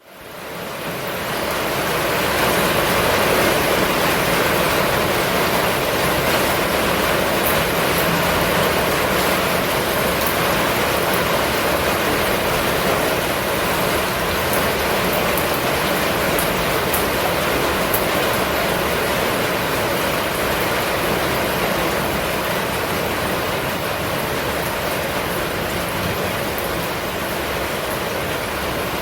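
Steady, constant rain falling, an even hiss of many drops that fades in over the first couple of seconds.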